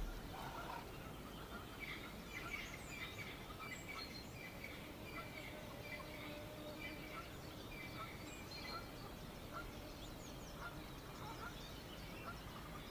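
Several birds chirping and calling, one of them repeating a short note over and over through the first two-thirds, over a low wind rumble.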